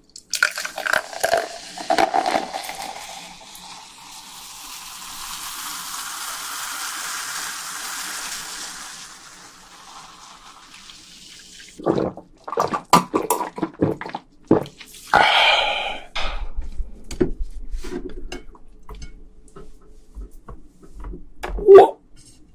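Close-miked mukbang eating sounds: wet smacks and chewing, with a steady watery hiss for several seconds near the start, then irregular crunches and slurps.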